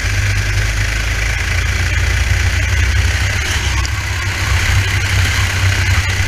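Racing kart engine running steadily under way, with an even hiss over it and no marked change in revs.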